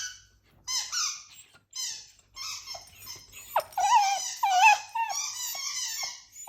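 Small dog whining: a few short high-pitched whines, then a longer run of wavering whines from about halfway through.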